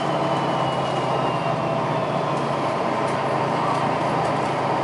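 City bus underway, heard from inside the passenger cabin: a steady low engine drone under road and cabin rumble. A faint high whine drifts slowly down in pitch over the first couple of seconds.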